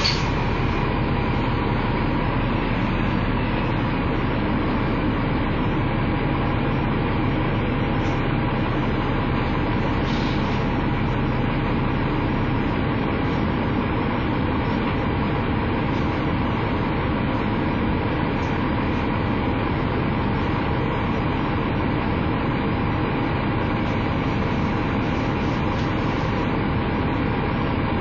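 Diesel engine of a KMB ADS-class tri-axle double-decker bus idling steadily while stationary, with a constant hum.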